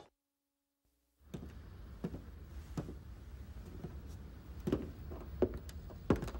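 About a second of dead silence, then quiet room tone with soft, irregular knocks every half-second to a second, the loudest ones in the second half.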